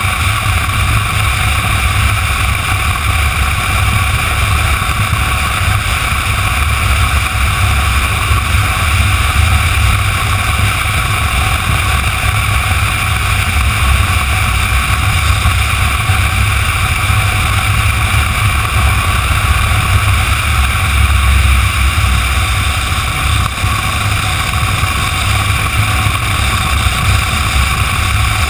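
Motorcycle cruising steadily at road speed: a constant low wind rumble on the microphone mixed with engine and road noise, with no change in pace.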